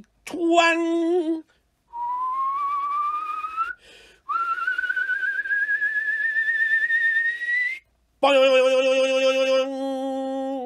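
A man's vocal sound effects for a shot arrow: a short sung "twang" for the bowstring, then a long whistle rising slowly in pitch for the arrow in flight, with a brief break partway, then a voiced "boioioing" with a wobbling pitch as it strikes, cut off sharply.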